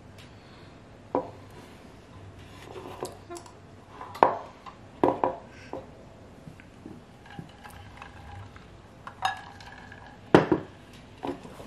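Gel-nail bottles and tools handled on a tabletop: a scattered series of sharp clicks and light clinks of small hard objects. The loudest come about four, five and ten seconds in.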